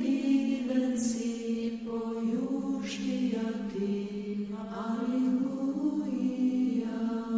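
Orthodox church chant: voices singing a slow melody over a steady held low note.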